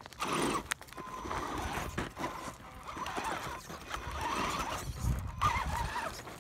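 Electric RC rock crawler's motor and drivetrain whining as it crawls over loose rock, the whine coming and going, with stones clicking and clattering under the tyres.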